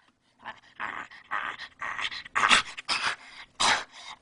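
A child making a funny noise: panting in short breathy huffs, about two a second, like a panting dog.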